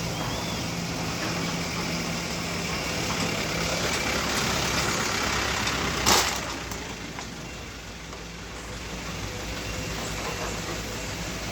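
Sumitomo SH210-6 hydraulic excavator's diesel engine running under working load, with a brief loud burst of noise about six seconds in, after which the engine eases off for a few seconds.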